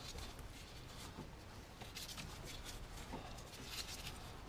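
Faint light clicks and scraping of a brake caliper's guide pin bolts being fitted and started in their threads by hand.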